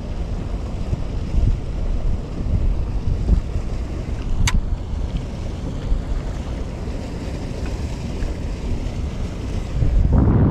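Wind buffeting the camera microphone, a steady low rumble that swells louder near the end, with one brief sharp click about halfway through.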